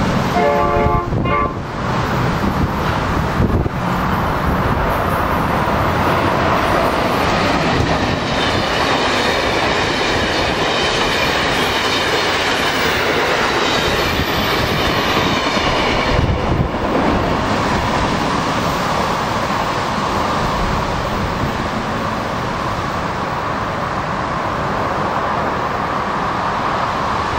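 Amtrak AEM-7 electric locomotive and its passenger coaches passing at speed, a steady rushing rumble with rail clickety-clack. A short horn blast sounds in the first second and a half, and a high whine rises over the noise for several seconds in the middle.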